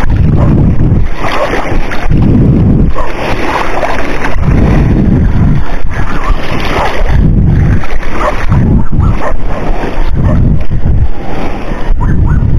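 Wind buffeting the microphone in repeated irregular surges, every second or two, over the sound of the sea.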